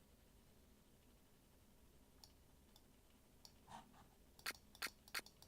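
Near silence, then near the end three short, sharp, high clicks about a third of a second apart: a sampled ice crack, pitched up and cut short in Ableton's Impulse, playing as a looping shaker part.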